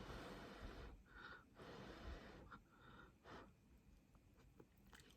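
Near silence, with a few faint, short soft noises.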